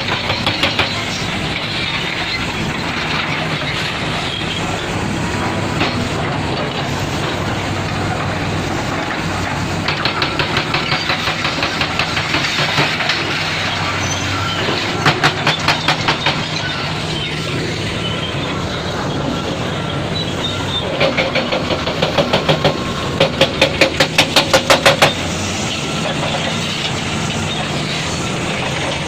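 Heavy construction machinery's diesel engine running steadily, with several runs of rapid, evenly spaced metallic knocking, about five a second, the loudest run a little after the middle.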